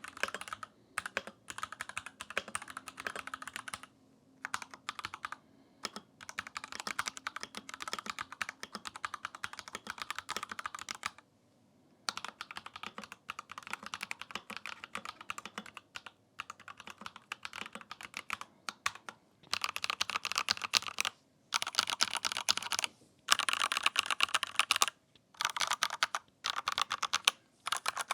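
Fast typing on RK61 Plus compact mechanical keyboards, the switches clacking in runs of a few seconds with short pauses between. From about twenty seconds in, the clatter is louder and sharper.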